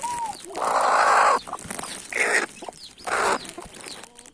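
Domestic hen giving three loud, harsh squawking calls about a second apart, while small chicks peep around her.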